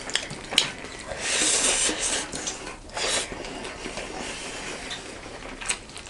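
Close-up eating sounds at a meal of rice and dal: short bursts of crackly, rustling noise from food being mixed and chewed, with a couple of sharp clicks.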